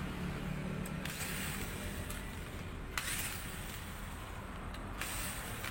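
Screws being undone by hand on an angle grinder's gear housing: short scraping turns about every two seconds over a steady low hum.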